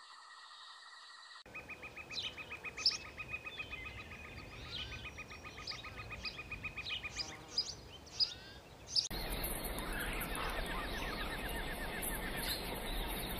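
Tropical forest ambience. Birds chirp over a rapid pulsing trill. About nine seconds in, the sound switches to a steady high insect buzz with another short trill and a low rumble underneath. For the first second or so there is only a steady high tone.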